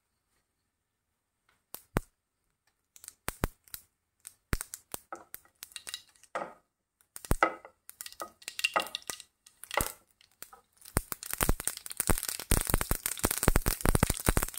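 Mustard seeds crackling as they burst in hot oil in a pan. The first single pops come about two seconds in and grow more frequent, running together into a dense, steady crackle over the last few seconds.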